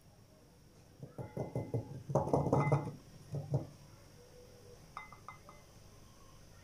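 A flour sieve shaken and knocked against a glass mixing bowl: a burst of rapid rattling knocks about a second in, lasting a couple of seconds, then a few light clicks.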